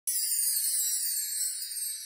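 High, sparkling jingle sound effect: a bright shimmer that starts abruptly and slowly fades.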